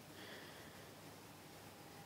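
Near silence: faint steady hiss of room tone, with a faint brief hiss in the first second.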